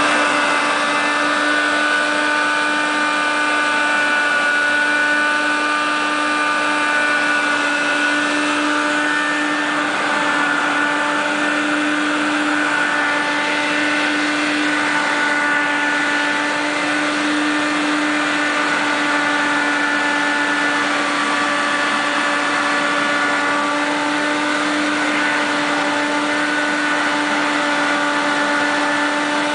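Vacuum cleaner running steadily: a constant motor hum and whine over a rush of air, with small shifts in its tone now and then.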